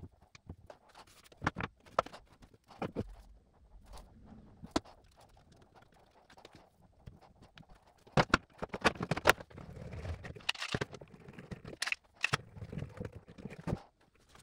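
Wooden boards and bar clamps being handled on a workbench: sharp knocks and clacks as oak panels are set together on dowels and clamped, scattered at first and a louder, busier clatter from about halfway through.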